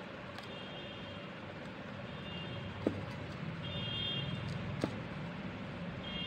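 Steady low rumble of background road traffic, with faint high tones coming and going and two short sharp clicks, about three and five seconds in.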